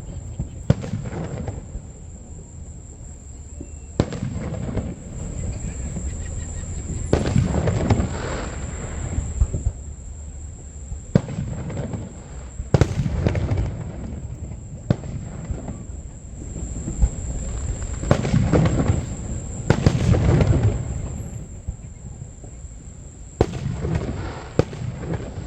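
Aerial fireworks shells bursting: about ten sharp bangs a few seconds apart, each trailing off into a rumble and crackle. A faint steady high-pitched tone runs underneath.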